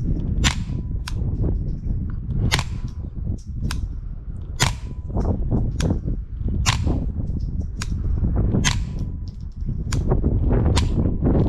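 A string of suppressed .22 rimfire shots, a strong report about every two seconds with fainter sharp cracks in between.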